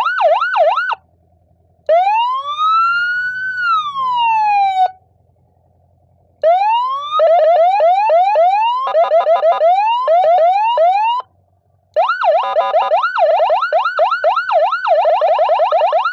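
Senken 60-watt electronic siren module sounding loudly through its speaker, stepped through several tones with short pauses between: a fast yelp that stops about a second in, then one long wail that rises and falls, then a string of quick rising chirps, and from about twelve seconds a rapid warble.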